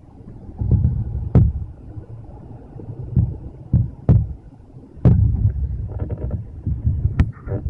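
Gusting typhoon wind buffeting the microphone in uneven low surges, with several sharp knocks along the way.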